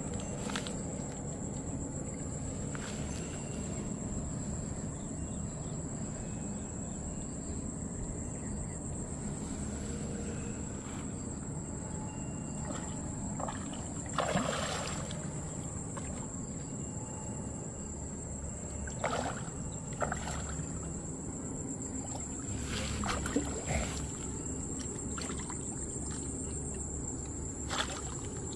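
A hooked fish splashing at the water's surface as it is hauled in on a hand line: one big splash about halfway through and a few shorter splashes and slaps later. A steady high thin whine and a low rumble run underneath.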